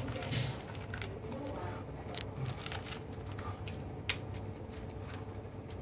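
Shih Tzu eating dry kibble from a plastic bowl: irregular crunches and clicks as it bites and chews, about two a second.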